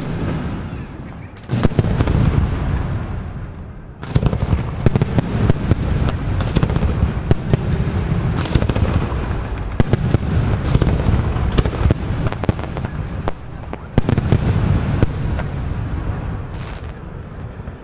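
Aerial firework shells bursting one after another, sharp bangs and deep booms with a rolling echo after each, the barrage easing off near the end.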